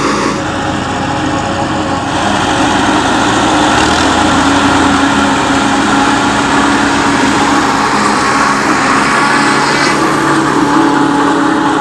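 Silage harvester at work in a maize crop: its engine runs steadily under a dense, continuous mechanical din.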